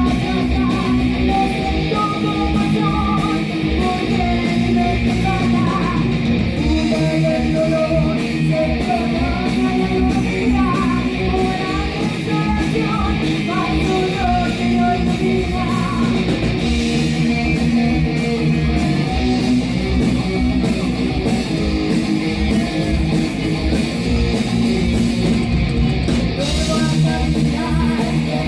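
Heavy metal band playing live: distorted electric guitars, bass and drums in a dense, steady, loud wall of sound with a driving regular beat.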